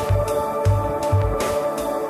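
Background music: held chords over a pulsing bass line.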